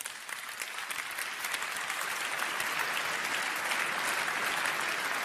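Audience applauding in a large hall, the clapping swelling over the first couple of seconds and then holding steady.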